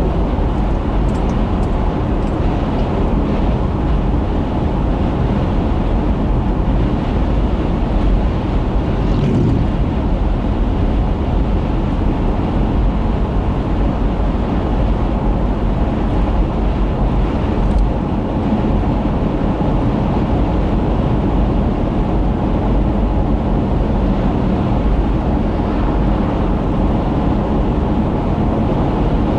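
Steady road noise of a car driving at highway speed, heard from inside the cabin through a dashboard camera: tyre and engine noise as a constant low rumble.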